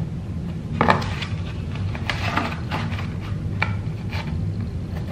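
Pencil and plastic ruler being worked on a cardboard box: short scratching strokes of the pencil and knocks as the ruler is set down and moved. The loudest is a sharp knock about a second in, all over a steady low hum.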